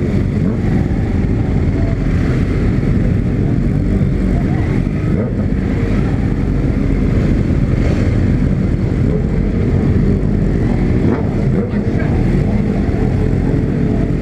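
Honda CB300 motorcycle's single-cylinder engine running loud through its exhaust while riding, the engine note wavering a little as the throttle changes.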